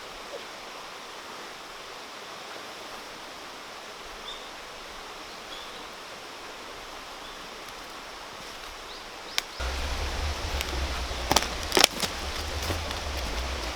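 Mountain stream flowing, a steady rush of water. About nine and a half seconds in, the sound jumps louder with a low rumble, and a few sharp clicks follow a couple of seconds later.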